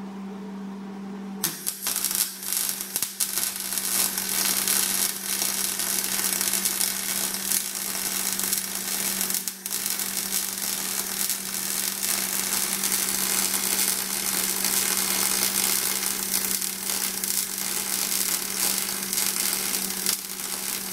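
MIG welding arc crackling steadily for nearly twenty seconds, starting about a second and a half in, with a brief break about halfway through, then cutting off suddenly as the trigger is released. A steady low hum runs underneath.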